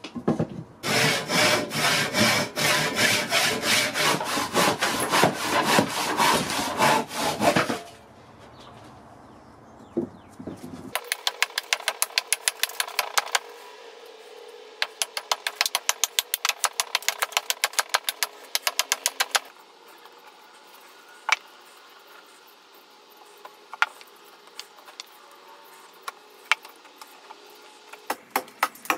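Hand saw cutting through a block of old, weathered fence-post wood in quick, even strokes for about seven seconds. After a pause comes a quicker run of light, sharp taps on the wood, and then scattered single knocks near the end.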